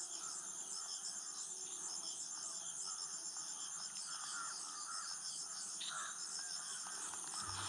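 Insects chirping in a steady, rhythmic high-pitched trill.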